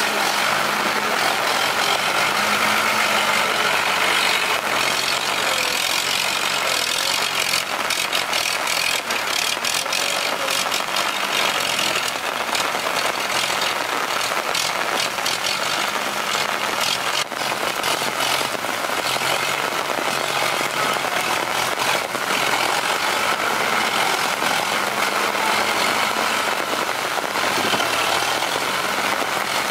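Diesel engine of a tractor-based log grab loader running steadily under load, with a constant hiss of rain over it. A spell of scattered clicks and rattles comes about a quarter of the way in.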